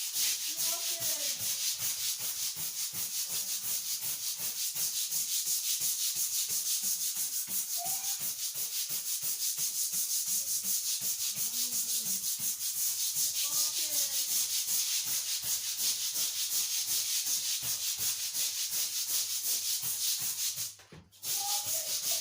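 Hard scrubbing of a thick, carpet-like non-slip floor covering, fast back-and-forth strokes at an even pace, working at stuck-on dirt. The scrubbing stops briefly near the end, then starts again.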